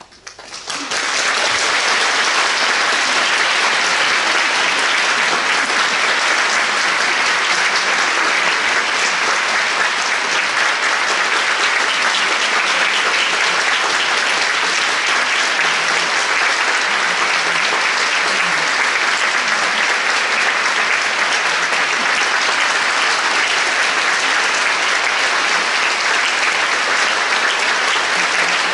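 Concert audience applauding, rising quickly in the first second or so and then holding steady.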